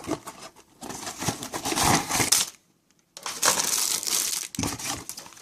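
A boxed plastic model kit being opened by hand: crinkling and scraping of the cardboard box and its packaging, in two spells with a short pause between them about halfway through.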